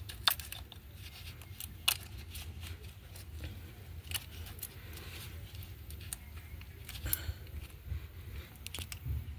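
Plastic wiring-harness connectors being pushed onto ignition coils by a gloved hand: a few sharp clicks spread across several seconds, with handling rustle and a low steady hum underneath.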